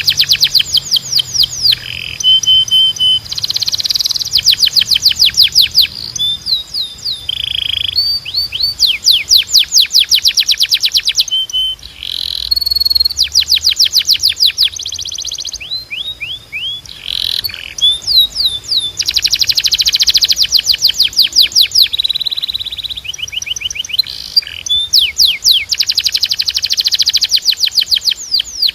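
Timbrado canary singing continuously. Fast trills of rapidly repeated falling notes alternate with short, steady whistled notes, with brief pauses between phrases.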